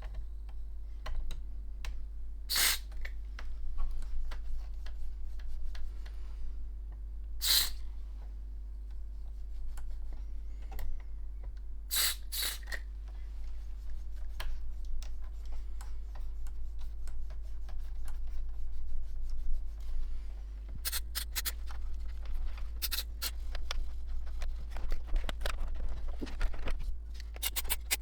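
Short hissing bursts of aerosol contact cleaner, four quick squirts in the first half, then a run of rapid clicking and scraping from about three quarters of the way in.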